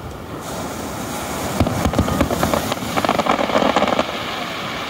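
Surf washing up onto the beach, a steady rush that swells, with a dense run of crackling between about one and a half and four seconds in.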